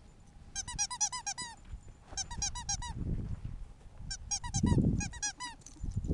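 A rubber squeaky toy squeezed over and over, giving four bursts of quick high squeaks, several a second. Low rustling and thumping noise comes between the bursts, loudest about five seconds in.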